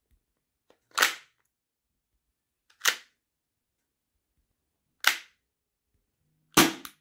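Action Army AAP-01 airsoft gas pistol's mechanism being worked with the magazine out: four sharp clicks spaced about two seconds apart, the last one a quick double click.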